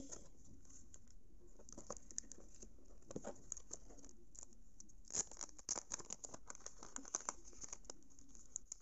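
Fingers handling and shuffling a small stack of photo prints in plastic wrapping, making faint rustles, scrapes and small ticks. The ticks come thickest from about five to seven and a half seconds in.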